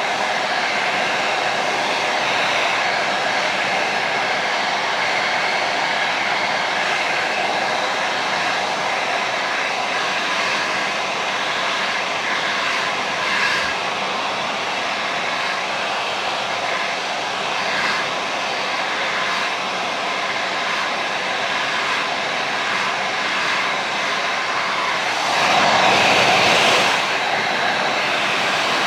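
Handheld hair dryer blowing steadily, with a brief swell in loudness for about two seconds near the end.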